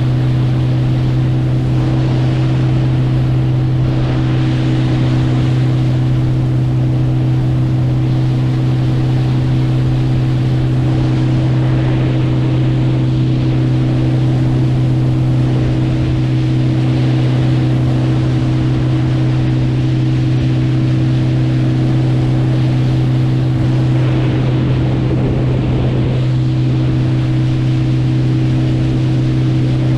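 Motorboat engine running at a steady, unchanging pitch, with water rushing past the hull and wind on the microphone.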